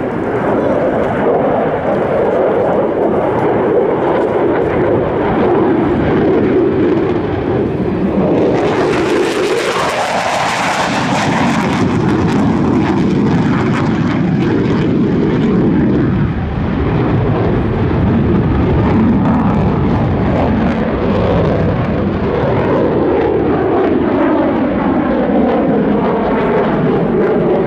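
Loud, continuous jet engine roar of an F-16 fighter flying a display routine. About a third of the way through it swells with a harsh high hiss, and near the end the tone takes on a sweeping, flanging quality as the jet passes.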